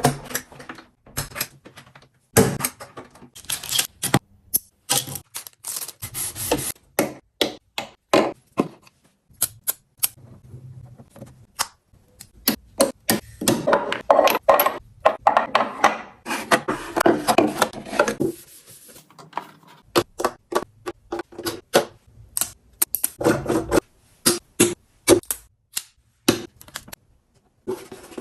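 Hands sorting things in a mirror cabinet: a rapid run of clicks, clacks and taps as small items and organizers are picked up and set down, with stretches of rubbing and rustling between.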